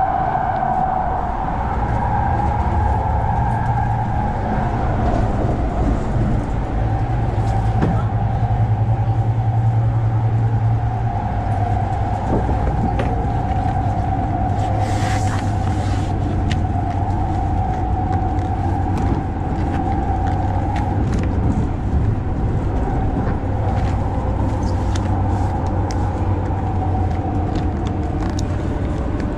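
Light rail train car in motion, heard from inside: a steady rumble of wheels on the track with a constant whine over it. A few light clicks and a brief hiss about fifteen seconds in.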